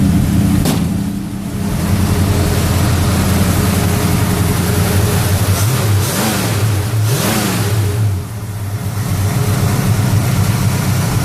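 1966 Ford Mustang's 302 V8 with its factory two-barrel carburettor running just after a cold start at about 35 °F, with two short revs about six and seven seconds in.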